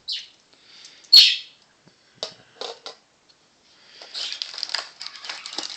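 Thin plastic packaging being handled while model parts are taken out: a few short rustles and clicks, then steady crinkling from about four seconds in.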